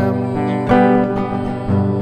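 Nylon-string classical guitar playing a song accompaniment, fresh notes plucked about once a second.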